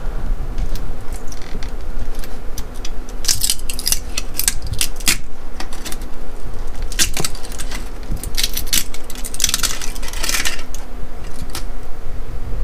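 3D-printed plastic battery vent-pipe tees being picked off a 3D printer's print bed and handled, clicking and clattering against each other and the bed in a run of sharp knocks, with a few longer rattles.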